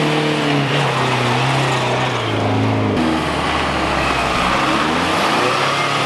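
A vehicle engine revving, its pitch rising and falling as the revs change, with a shift in the engine note about three seconds in.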